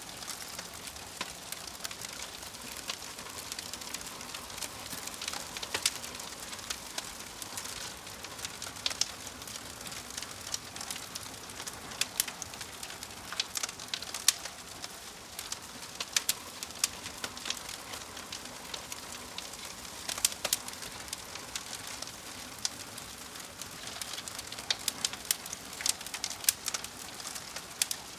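Wood fire burning in a fireplace: a steady hiss of flames with frequent irregular crackles and sharp pops from the burning logs.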